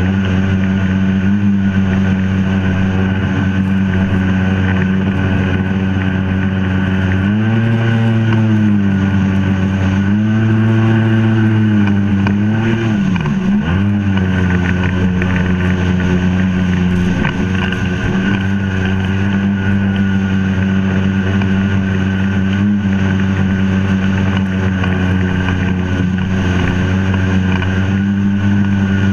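Two-stroke Sea-Doo personal watercraft engine running at speed, heard from on board over a rush of wind and water spray. A little before a third of the way in, its pitch swells and falls twice, then drops sharply and briefly before climbing back to a steady cruise.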